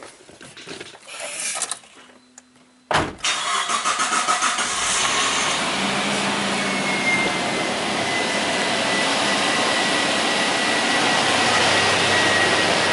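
A car engine cranks and starts about three seconds in, running unevenly for a moment before settling into a steady idle.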